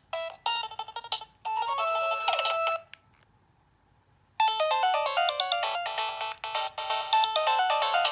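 Nokia 2115i mobile phone playing its preloaded ringtones through its speaker: an electronic ringtone melody ends about three seconds in, and after a short pause the next, busier ringtone starts up.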